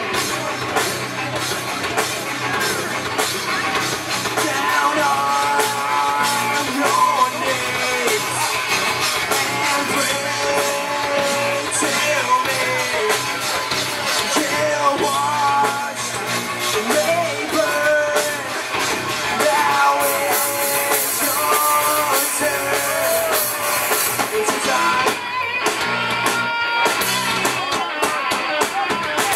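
A rock band playing live through a PA: electric guitars, bass and drum kit, with a voice singing over them. The cymbals wash loudly for several seconds about twenty seconds in.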